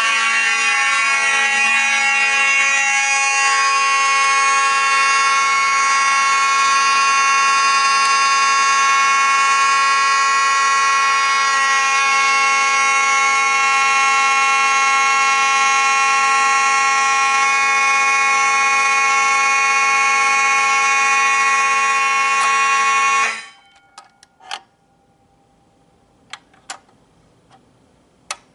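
Fire alarm system in alarm, its notification appliances sounding one continuous steady tone rather than a pulsed pattern. About 23 seconds in the alarm cuts off abruptly, followed by a few sharp clicks.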